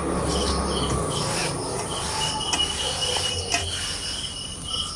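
Crickets chirping in steady repeated pulses, with a thin, steady high tone from about two seconds in until near the end.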